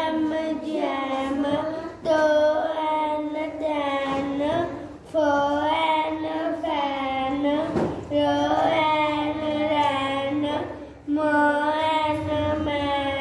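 A young boy reading a phonics book aloud in a sing-song chant, sounding out letters and short words in phrases of about three seconds with short pauses between.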